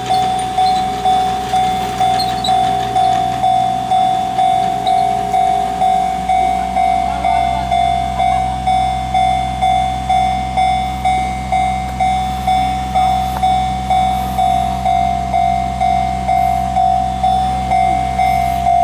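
Japanese railway level-crossing warning bell ringing, a single high ding repeated a little under twice a second. A low steady rumble joins about seven seconds in.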